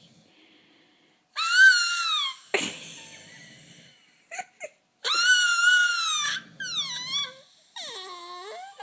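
A baby squealing loudly and high-pitched: two long squeals that fall in pitch at the end, a couple of short yelps, then shorter wavering squeals that slide lower near the end.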